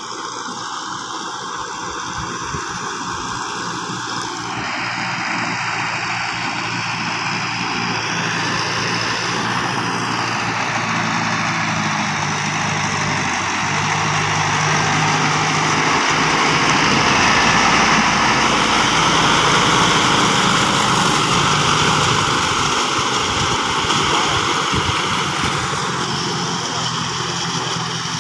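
Kubota MU4501 tractor's four-cylinder diesel engine running under load as the tractor works a flooded paddy field on cage wheels. It grows louder toward the middle, then eases off a little near the end.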